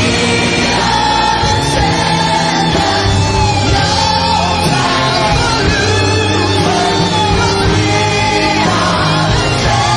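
Music with a singing voice over sustained bass notes, rock in style.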